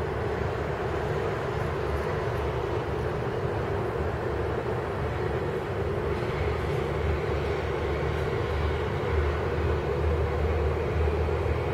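Steady background rumble with a constant hum, the low rumble swelling a little in the second half.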